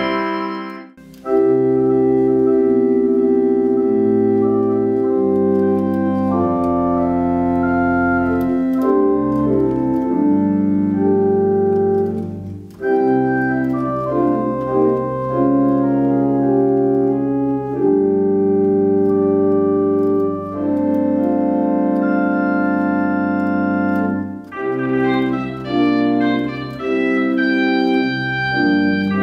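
Organ music: slow sustained chords over a held bass line, with a brief break about a second in.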